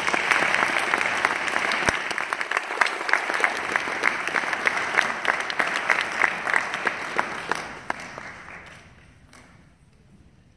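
Audience applauding, with single sharp claps standing out close by. The applause fades away about eight or nine seconds in.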